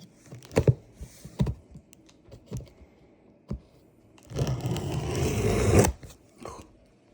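A steak knife working open a cardboard box and its packing tape: a few short knocks and scrapes, then about a second and a half of loud scraping and tearing a little past the middle.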